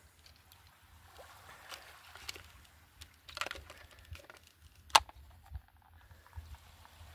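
Small waves lapping gently in the shallows of a sandy beach, with a low rumble of wind on the microphone. Scattered clicks and knocks, the sharpest about five seconds in.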